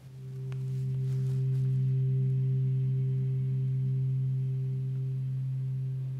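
A low, steady sustained tone, a musical drone, swells in over the first second and holds, with fainter overtones above it.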